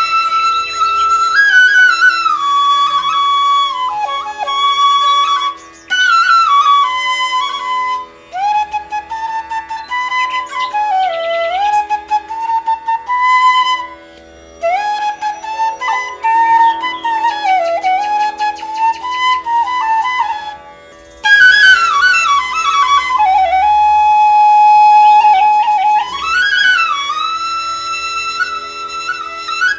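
Background music: a solo flute playing a slow melody with many bends and glides over a steady drone, pausing briefly several times.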